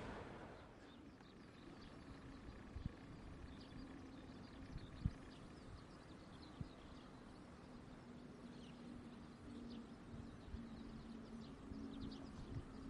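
Quiet outdoor ambience with scattered faint bird chirps and a few soft clicks, and a low steady hum growing in over the last few seconds.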